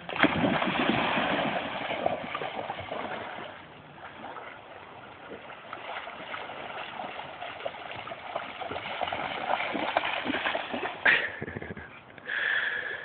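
A dog splashing into a shallow river and swimming, with loud sloshing water for the first few seconds, then quieter running water and paddling. A sharp knock comes about eleven seconds in.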